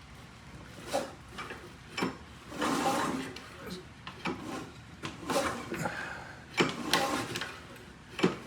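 Recoil starter rope of a small lawn mower engine being pulled, two longer rasping pulls among sharp knocks of handling. The engine turns over against compression without firing.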